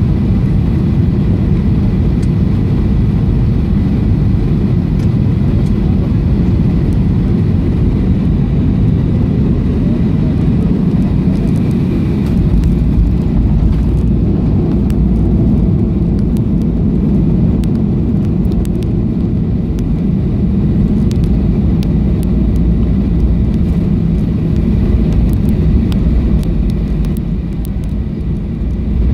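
Cabin noise of a Boeing 737-700 landing: a steady roar of its CFM56 engines and rushing air. A little under halfway through, the plane touches down and a deeper rumble from the wheels on the runway sets in, with light rattles, as it rolls out with the spoilers raised.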